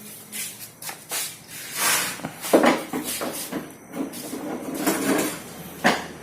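Irregular knocks and metallic clinks of tools and parts being handled, with sharper strikes about two and a half seconds in and again near the end.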